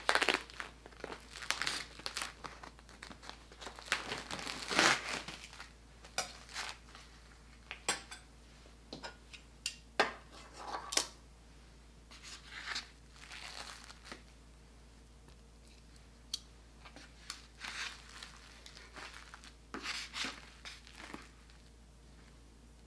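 Plastic wrap crinkling and tearing in irregular bursts as raw ribeye steaks are unwrapped from a foam meat tray, with a few sharp taps among the rustling.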